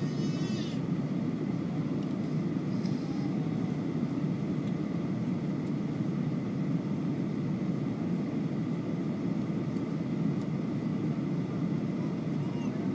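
Steady cabin noise inside a Boeing 737-900 airliner on approach: an even, dull rumble of its CFM56 engines and rushing air heard from a window seat over the wing, with a thin steady high whine above it.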